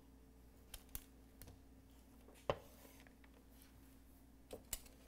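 A few faint clicks and taps from a spatula and chopsticks against a foil-lined baking tray as baked fish is moved, the loudest about halfway through, over a faint steady hum.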